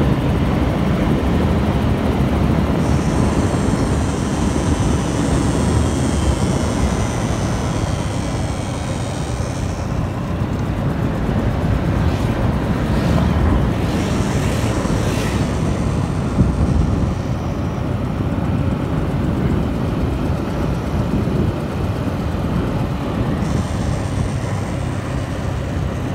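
A vehicle running along a road: a steady engine drone with road and wind rush. A high buzz cuts in a few seconds in, stops about ten seconds in, and comes back near the end.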